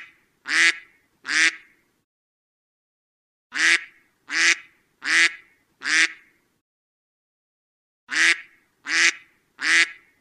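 A duck quacking loudly in runs of four evenly spaced quacks, a little under a second apart, with pauses of about two seconds between runs. Every quack has the same shape.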